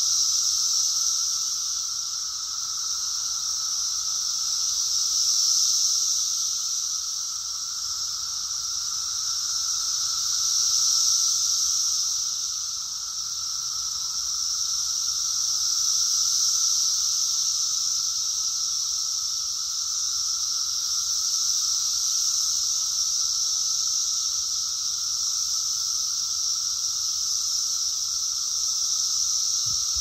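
Chorus of 17-year periodical cicadas: a dense, steady high buzz that swells and fades in slow waves every five seconds or so, over a fainter, lower steady drone.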